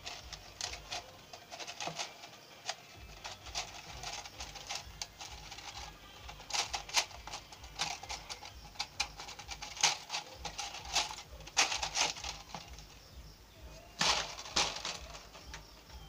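Thin clear plastic bottle being handled and squeezed, crinkling and crackling in irregular clicks, with louder bursts about 7, 10, 12 and 14 seconds in.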